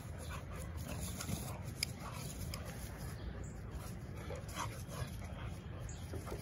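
Two pit bull–type dogs play-wrestling, with short, faint dog vocalizations scattered through, over a steady low rumble in the background.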